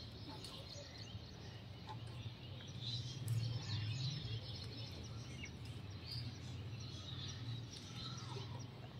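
Faint outdoor ambience: small birds chirping now and then over a steady low hum, with light rustling of vine leaves as a hand picks butterfly pea flowers.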